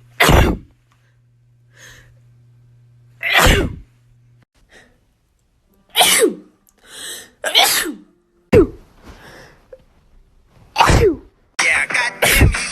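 A series of about seven human sneezes a second or two apart. Several are preceded by a quick in-breath. A busier background sound comes in near the end.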